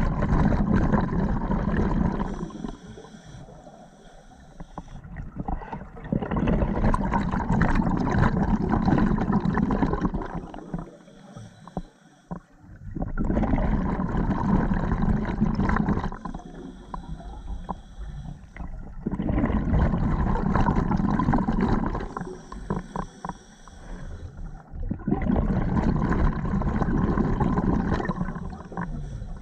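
Scuba diver's open-circuit breathing heard underwater: a thin regulator hiss on each inhale, then a loud rush of exhaled bubbles lasting about three seconds. The cycle repeats steadily about every six seconds, five breaths in all.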